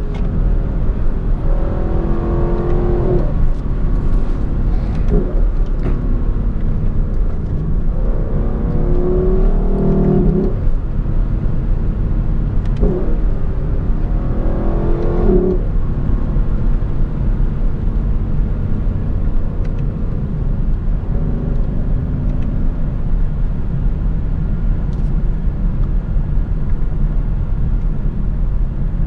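Lexus LC 500's 5.0-litre V8 pulling hard three times, its note rising with each pull. Under it runs steady, heavy wind and road noise from the open top.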